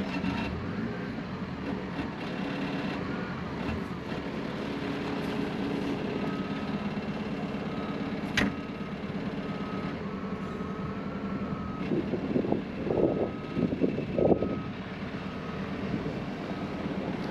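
Vehicle engine running steadily, with an intermittent beeping tone coming and going from about six seconds in, like a reversing alarm. A single sharp click comes near the middle, and there are louder bursts of rumble a few seconds before the end.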